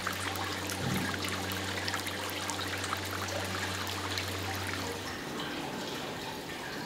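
A thin stream of water splashing steadily from a white sculptural fountain. A low steady hum sits underneath and stops about five seconds in.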